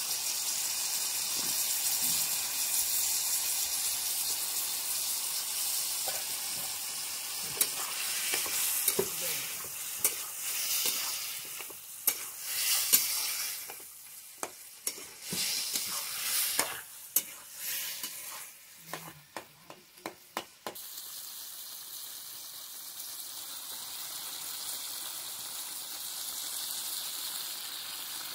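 Curry sizzling in a metal pan over a wood fire, with a metal spatula stirring and scraping. In the middle the spatula clicks and knocks sharply against the pan many times, then the steady sizzle carries on more quietly.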